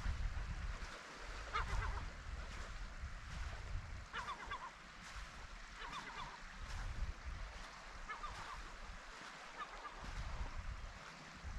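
Gull calling over and over: short runs of a few quick, pitched notes about every two seconds, over a low rumble of wind on the microphone.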